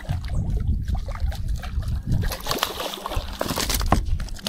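Water splashing and sloshing with irregular low thumps, and a few sharp clicks near the end.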